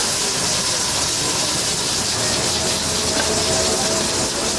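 Steady loud hiss of steam venting from a row of aluminium pressure cookers cooking mutton over gas burners.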